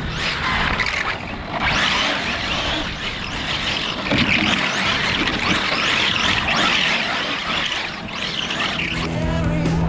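ZD Racing EX07 1/7-scale brushless electric RC drift car driving on block paving: tyre scrub and drivetrain noise that swells and fades several times as the car accelerates, slides and passes.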